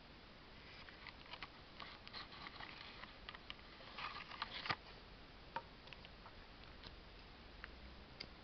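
Plastic Crayola markers being handled on a table: scattered light clicks and taps. The clicks are busiest about four seconds in, where they end with one sharper click.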